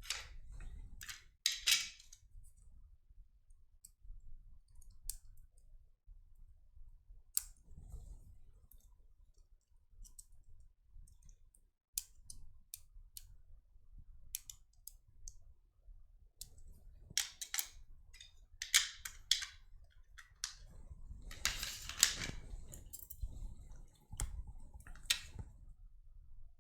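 Scattered light clicks and taps from handling a power supply board and test probes on a workbench, coming in small clusters, busiest in the last third.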